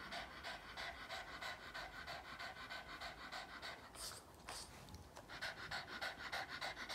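Boston terrier panting rapidly with its mouth open, about six quick breaths a second, with a short break about four seconds in.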